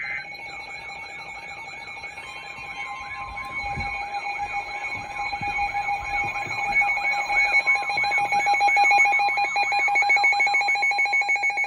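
Emergency Alert System attention signal: a steady two-tone alarm with a rapidly repeating warbling tone over it, growing louder and warbling faster about halfway through.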